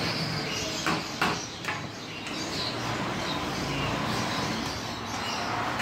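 A steel ladle clinking three times against a steel serving platter and bowls, quick sharp knocks about a second in, over steady street-stall bustle.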